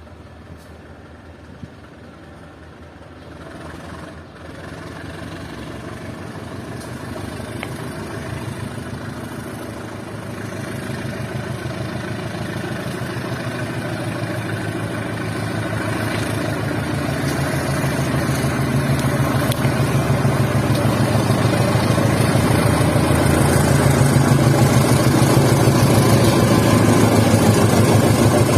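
Diesel locomotive of a departing passenger train, its engine running and growing steadily louder as the train pulls out and draws nearer.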